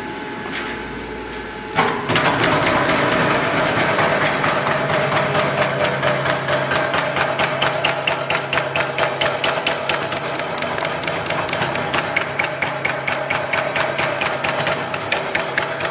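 SK-003S CNC carved cutting machine starting about two seconds in, then running steadily. Its motor hums under a rapid, even clatter as the cutter punches wooden veneer into disposable spoon blanks.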